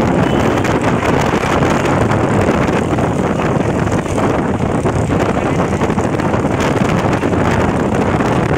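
Loud, steady wind buffeting on the microphone mixed with the running engines of motorcycles riding alongside.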